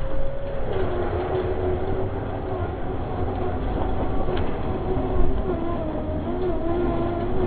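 Electric motor and gearbox of an RC scale tow truck whining as it crawls over rough ground, the pitch dropping about half a second in and then holding steady, over a low rumble and the rattle of its chassis and load. A bump stands out about five seconds in.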